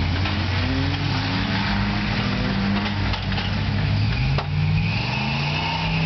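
Truck engine running steadily, then revving up a little over four seconds in, with a single short knock as it rises.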